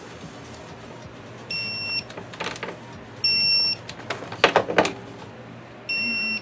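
Electronic torque wrench beeping three times, each a steady high-pitched beep about half a second long, the signal that the set torque is reached while the new brake line fitting at the rear caliper is tightened. Short metallic clicks and rattles of tool handling come between the beeps.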